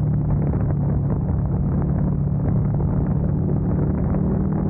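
KTM motorcycle engine pulling steadily in third gear at a constant cruise, a low droning note that holds without revving up or down, mixed with wind rushing over the on-bike camera's microphone.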